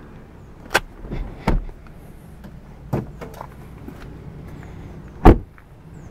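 A Fiat 500's door being opened and shut from inside: a handful of clicks and knocks from the handle and latch, then the door shut with a heavy thud about five seconds in, the loudest sound.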